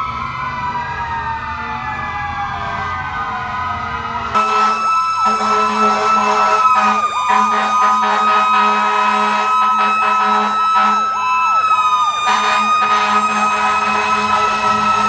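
Fire truck sirens. For the first four seconds several wailing sirens rise and fall over one another. Then a sudden louder stretch begins, with a fast yelping siren over a steady high tone.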